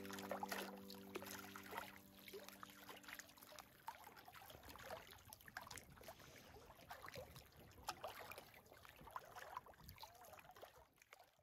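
Small waves lapping and splashing against a rocky lakeshore, faint and irregular. The tail of background music fades out in the first few seconds.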